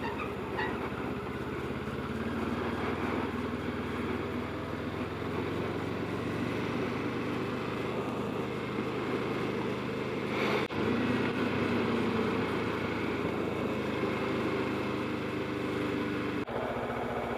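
Kawasaki Ninja 650's parallel-twin engine running steadily at low revs as the motorcycle is ridden, heard through a helmet-mounted camera. The engine sound dips briefly twice, about 11 seconds in and near the end.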